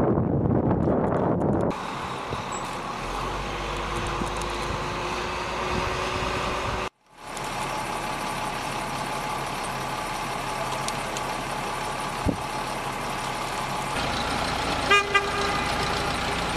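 Wind buffeting the microphone at first, then vehicle engines running steadily, with two short horn toots near the end.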